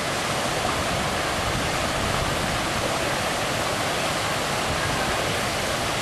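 Waterfall and the rocky cascade below it rushing steadily: a constant, even wash of falling and churning water.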